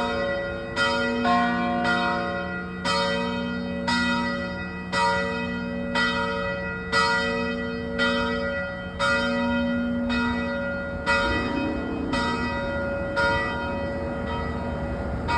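Church bells ringing, struck about once a second, each stroke's hum carrying over into the next. The strokes stop a couple of seconds before the end and the ringing dies away.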